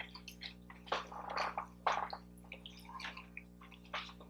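Close-miked eating sounds: soft chewing with a string of short, wet mouth clicks and smacks, over a faint steady electrical hum.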